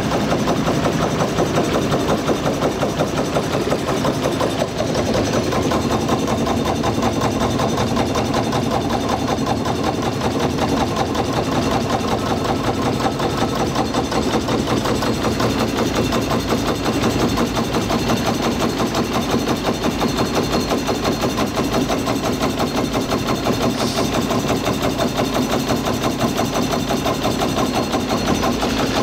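Small steam launch's engine running steadily under way, with a rapid, even beat.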